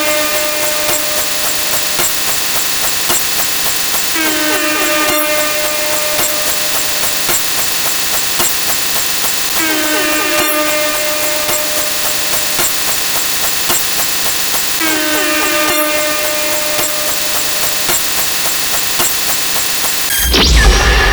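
A steady, loud mechanical hiss with a short pitched squeal recurring about every five seconds. Near the end it cuts suddenly to a loud low rumble.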